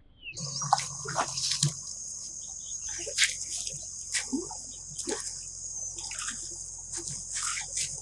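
Water running steadily with irregular splashes and drips over it, starting just after the beginning.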